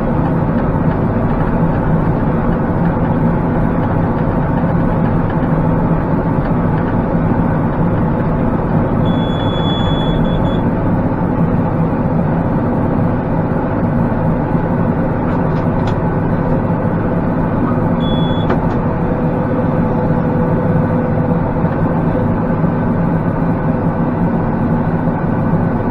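Massey Ferguson 4707 tractor's diesel engine running steadily under load, driving a Kubota BV4160 round baler while baling hay. A high electronic beep sounds for about a second and a half near the middle, and a shorter one a few seconds later.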